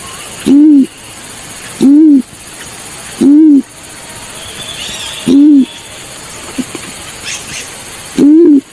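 Balorinay bird call played as a lure: five short, low hoots, each rising and falling in pitch, repeating every one to two seconds with one longer pause. The hoots are loud enough to clip.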